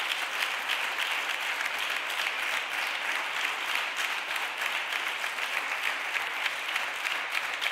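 Senators applauding: steady, dense clapping from a seated audience.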